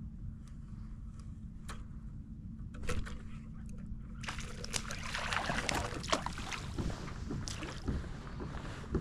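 Water sloshing and splashing around a kayak, with light knocks, over a steady low rumble. The splashing turns louder and busier about four seconds in.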